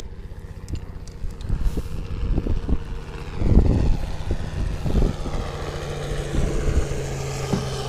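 A motor drones steadily, dropping slightly in pitch about two-thirds of the way through, with wind buffeting the microphone in a few louder gusts.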